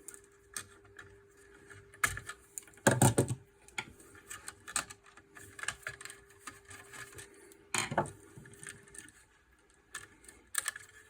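Small clicks and taps of hands working on a plastic fire alarm sounder base with a screwdriver, with two louder knocks about three and eight seconds in. A faint steady hum runs underneath and stops near the end.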